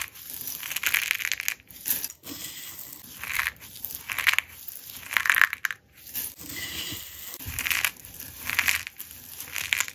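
A heap of dry, brittle coloured flakes crushed and squeezed in bare hands: a run of crisp crunches, one burst with each squeeze, roughly one a second.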